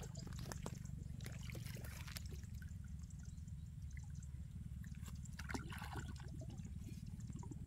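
Steady low rumble of wind on the microphone, with scattered light clicks and rustles.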